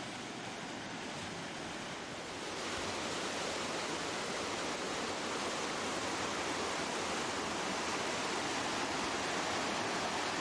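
River whitewater rushing steadily through a rapid. It gets louder and brighter about two and a half seconds in.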